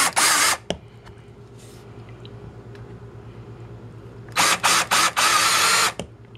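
Cordless drill boring pilot holes into a laminated shelf board in short trigger bursts: one brief burst at the start, then after a pause three more near the end, the last about a second long.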